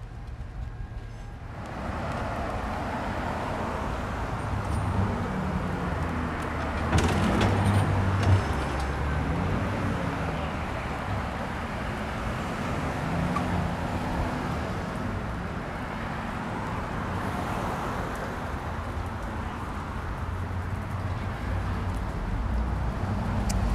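Road traffic on a city street: motor vehicles driving past, a steady engine and tyre rumble that swells about two seconds in and holds.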